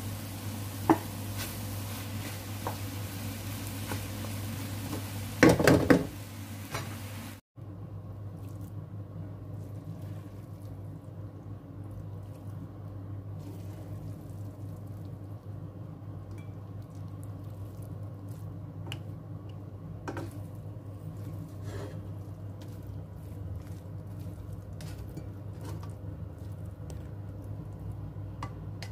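Noodles and vegetables sizzling in a wok as a wooden spatula stirs them, with a few loud scrapes and knocks against the pan about five to six seconds in. After a sudden break, quieter scattered clicks and taps follow as the noodles are served onto a ceramic plate, over a steady low hum.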